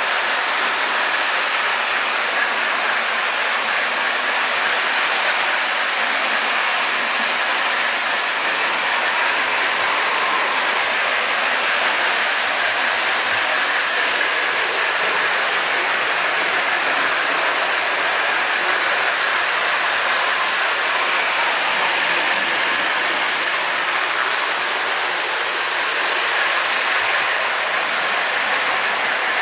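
Several electric toy trains running at once on three-rail tinplate track: three Marx 1666 locomotives and a Canadian Pacific Jubilee tin-lithograph set. Their motors and wheels make a steady, even whirring rumble.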